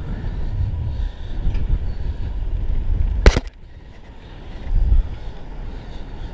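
Wind buffeting the microphone in a low, gusty rumble. One sharp knock comes about three seconds in, then the rumble drops off for about a second and builds again.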